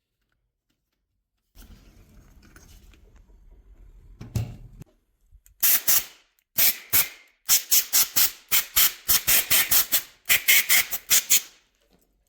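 Rapid scratchy scrubbing strokes on starter motor parts, in runs of about three to four strokes a second, as dirt and carbon dust are scrubbed off during cleaning. A faint low rumble and a single knock come before them.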